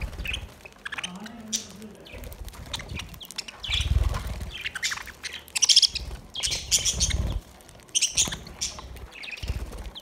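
A flock of budgerigars chirping and chattering while feeding, many short high chirps overlapping throughout, with several brief wing flutters as birds fly in close.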